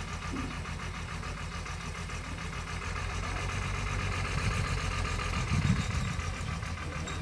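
Diesel engine of a truck-mounted borewell drilling rig running steadily at idle, a continuous low hum with a fine rattle.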